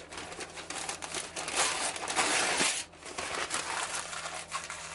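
Newspaper being scrunched up by hand, a dense crackling and crinkling that stops sharply about three seconds in, followed by softer rustles.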